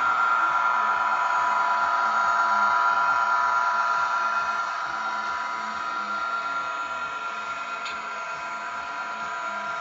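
Simulated diesel locomotive engine sound from an MRC sound decoder playing through the small speaker of a Bachmann SD40-2 model locomotive: a steady, tinny engine drone with a whine. About halfway through it drops in level and its whine settles lower, and there is one brief tick near the end.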